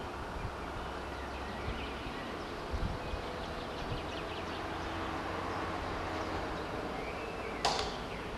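Outdoor railway-station ambience: wind buffeting the microphone with a low rumble and a few dull thumps, faint high chirps around the middle, and one sharp click near the end.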